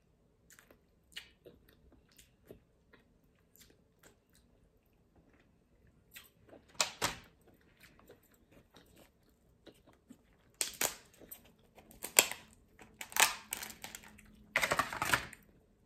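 Steamed blue crab being eaten and broken apart by hand. Faint chewing and mouth clicks come first, then a series of loud cracks and crunches in the second half as the shell is pulled apart, the last one a longer tearing crunch.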